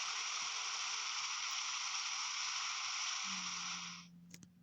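Waterfall sound effect: a steady, even rush of falling water that cuts off suddenly about four seconds in. A low hum comes in shortly before it ends, and a couple of clicks follow.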